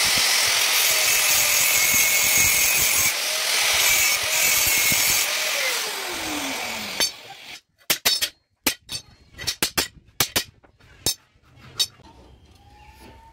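Angle grinder cutting through flat steel bar, a loud steady grinding with the motor's whine, then switched off and winding down with a falling pitch about six seconds in. After that come several sharp metallic clanks as the cut steel strips are set down and shifted on the concrete floor.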